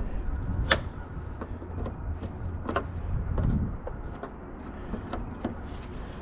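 Scattered sharp clicks and knocks of car parts and tools being handled during radiator and cooling-fan removal, over a steady low rumble.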